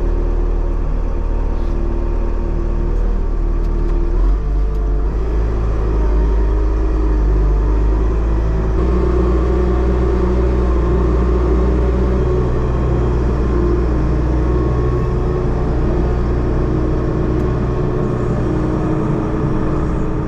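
Bobcat Toolcat utility machine's diesel engine running steadily under load while it moves a heavy salt spreader on a pallet. The engine note shifts in speed about four seconds in and again about nine seconds in.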